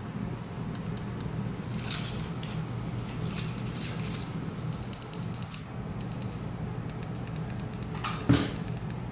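Light metallic jingling and clinking in a short run about two to four seconds in, over a steady low hum, then a single sharp thump near the end.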